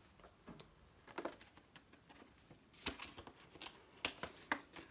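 Faint rustling and crinkling of polymer banknotes being handled and slid into a clear plastic binder pocket, in scattered short strokes that come more often in the second half.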